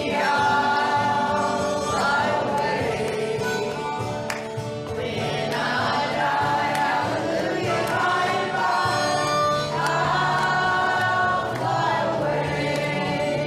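A church worship team singing a worship song together as a group, holding long notes.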